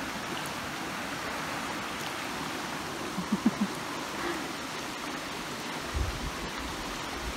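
River water flowing over a shallow rocky bed, a steady rushing. A brief low rumble comes about six seconds in.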